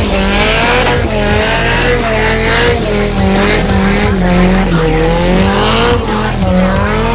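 Car doing a burnout: the engine is held at high revs that rise and fall roughly once a second as the throttle is worked, with the rear tyres squealing as they spin in place.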